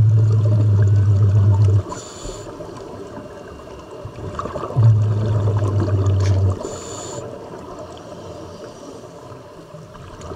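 Scuba diver breathing through a regulator underwater: two exhalations, each a loud low rumble of bubbles lasting nearly two seconds and about five seconds apart, with a short hissing inhalation after each one.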